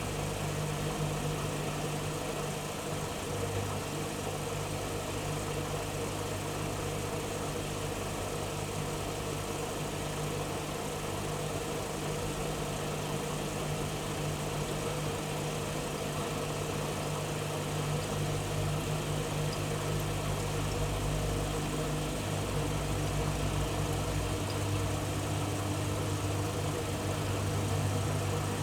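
AEG Öko-Lavamat 85769 front-loading washing machine running mid-cycle: a steady motor hum, with a deeper rumble coming in about twenty seconds in.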